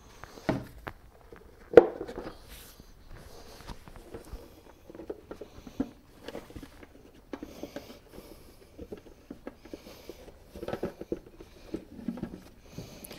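Plastic air box cover being fitted by hand over the air filter: scattered light clicks, knocks and rustles of plastic parts, with one sharp click about two seconds in.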